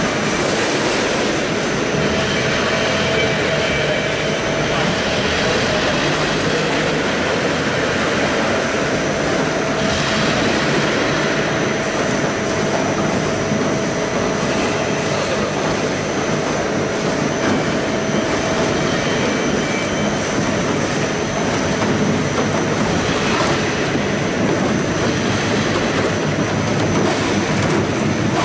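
Apple-processing line running: conveyors and machine motors keep up a steady mechanical din with a thin constant whine, under a dense clatter of apples rolling and knocking along the conveyor.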